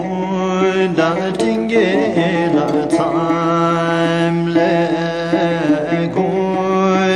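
Music: a song, with a voice singing a wavering melody over sustained instrumental chords.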